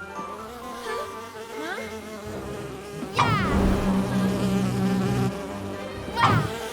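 Cartoon sound effects: a steady buzzing drone, with a short squeaky sound that drops sharply in pitch about three seconds in and again near the end.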